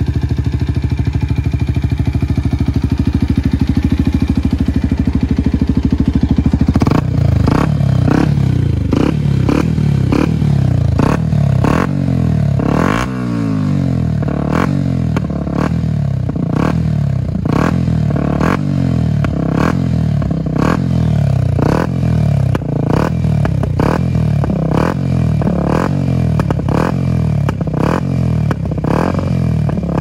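Yamaha WR125X's 125 cc single-cylinder four-stroke engine idling steadily, then from about seven seconds in revved in a long string of short blips, each rising and falling in pitch.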